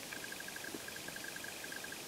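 A frog calling: a fast, even trill of short high notes at one steady pitch, about ten a second, lasting nearly two seconds.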